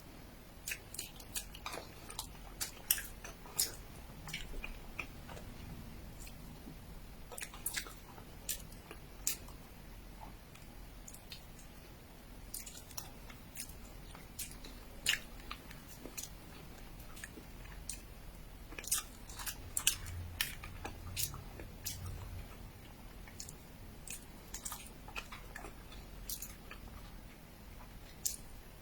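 A person chewing soft, sticky mochi, with irregular wet mouth clicks and smacks throughout.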